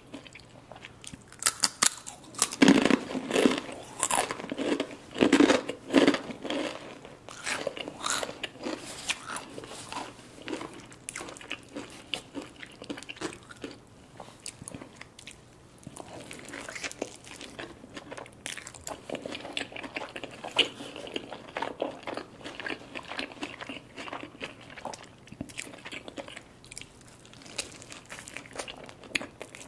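Close-miked eating: loud crisp crunches of Takis Blue Heat rolled tortilla chips being bitten and chewed for the first several seconds, then softer, steady chewing of a burrito, with another bite near the end.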